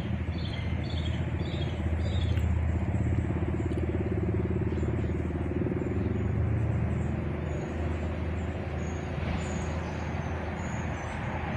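A steady low engine hum runs throughout. A bird gives four short falling chirps in quick succession in the first second and a half, and faint high chirps follow later.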